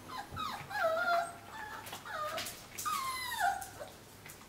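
Young puppies whimpering and whining: a string of high calls, several sliding down in pitch, with the longest about three seconds in.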